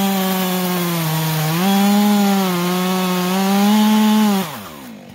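Stihl MS 400 C two-stroke chainsaw cutting through a firewood log at full throttle, its engine note sagging under load and picking back up twice. Near the end the throttle is released and the engine drops quickly toward idle.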